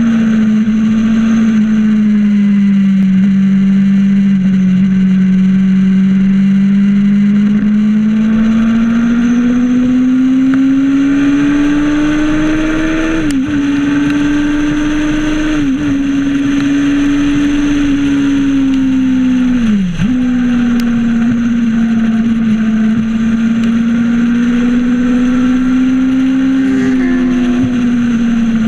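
Racing sidecar outfit's engine heard onboard at high revs, its pitch rising and falling slowly with speed through the corners. A few sharp, brief dips in revs come around the middle and about two-thirds of the way through, with rushing wind under it.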